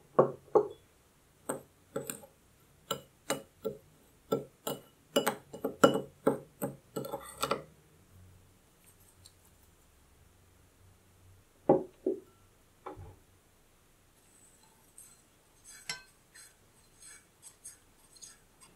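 Sharp clinks and taps of a utensil against a glass bowl as sugar and agar are mixed, in a quick uneven run that stops about seven seconds in. Then a soft pour into a white enamel saucepan, two knocks as the glass bowl is set down on the wooden table, and light scraping clicks of a silicone spatula stirring in the pot near the end.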